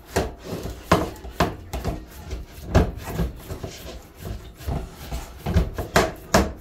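A hand pressing and patting raw ground beef into a frying pan to flatten it into one large patty, the pan knocking and rubbing with each press: about a dozen irregular knocks.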